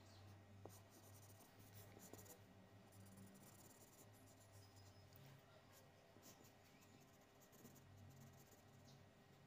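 Faint scratching of a felt-tip highlighter rubbed back and forth on paper in short, irregular strokes, over a low steady hum.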